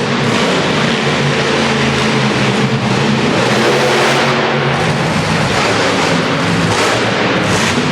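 Monster truck's supercharged V8 running loud and steady under a dense roar.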